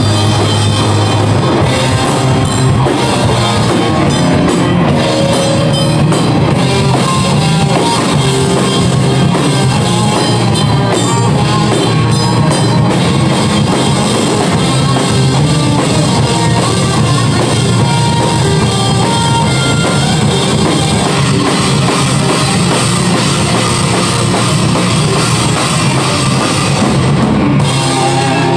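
Heavy metal band playing live, loud and dense: fast drumming on a full drum kit under electric guitar.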